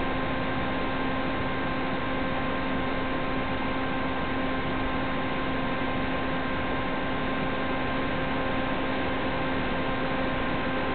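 Steady static hiss with a constant electrical hum at a fixed pitch, unchanged as the motor current rises and falls: electronic noise on the audio of an analog FPV video recording, not the motor itself.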